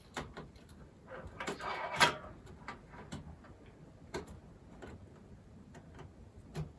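Laptop internals being handled while the right-side daughter board is taken out: scattered small plastic-and-metal clicks, with a brief scraping rustle about one and a half seconds in.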